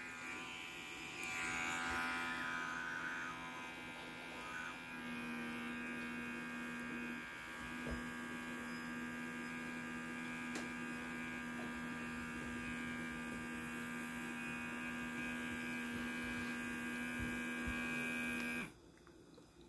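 Small suction motor of a handheld electric lip plumper, held against the lips, running with a steady buzzing hum. It switches off abruptly about a second before the end.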